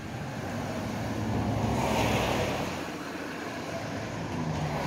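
A vehicle passing on the street: its road noise swells to a peak about two seconds in and then fades away.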